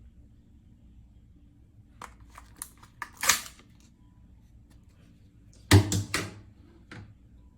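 Hard kitchen items knocking together while a drink is prepared: a few light clicks and taps, then a louder clatter of knocks about six seconds in and one more tap near the end.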